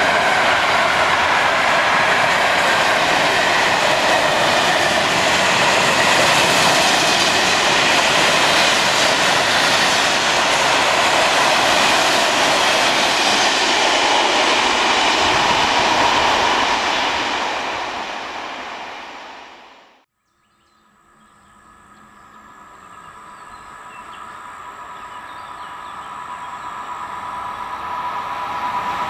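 Long freight train of covered sliding-wall wagons rolling past, its wheels and wagons making a loud steady rumble. The noise fades after the last wagon passes and cuts off suddenly about two-thirds of the way through. The sound of an approaching electric-hauled passenger train then grows steadily louder, with a faint steady high tone.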